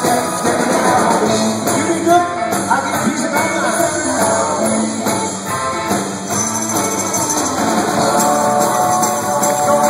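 Live rock band playing through a PA, with electric guitars and drums under a male lead singer's voice.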